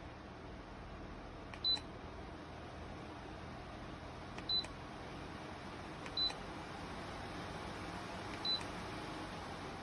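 Dreo Cruiser Pro tower fan running with a steady rush of air, its controls giving four short, high beeps, each with a faint click, spaced a few seconds apart.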